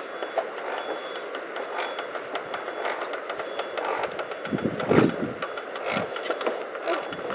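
Shovels scraping into a pile of earth and loose dirt landing on a coffin, with irregular scraping and clattering and a few dull thuds, the heaviest about five seconds in.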